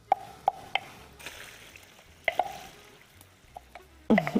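Metal kitchen utensil clinking against cookware in a few sharp taps with a short ring: three in the first second and two more a little past two seconds. A louder falling sound comes near the end.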